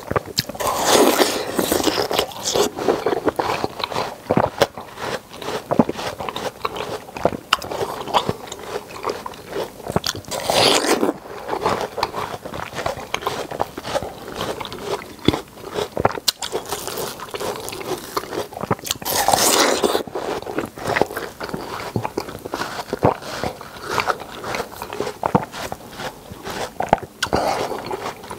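Biting and chewing juicy watermelon flesh close to a clip-on microphone: a steady run of small wet clicks and crackles, with a louder bite roughly every eight to nine seconds.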